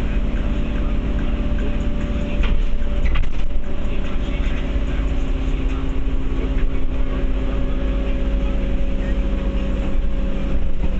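Diesel bus engine and road noise heard from inside the passenger saloon while under way: a steady low drone with a thin whine above it, and a few short rattles about two and a half to three and a half seconds in.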